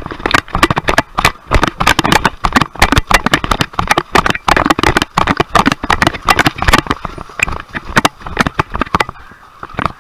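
Rapid, irregular rustling, brushing and knocking as a person runs through tall grass with a body-worn action camera. The grass sweeping past and the jolts of each stride hit the microphone. The sound eases briefly near the end.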